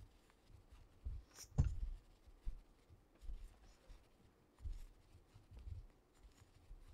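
Soft handling sounds of crocheting chunky blanket yarn with a metal hook: yarn drawn and rubbed over the hook and fingers, with scattered dull bumps and one sharper click about a second and a half in.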